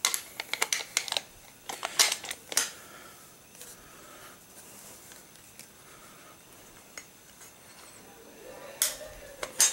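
Armas Erbi side-by-side 12-gauge shotgun being handled as its wooden forearm is worked back onto the barrels, making metal-on-metal clicks and knocks. A quick run of sharp clicks comes in the first three seconds, then quieter handling, then two more clicks near the end.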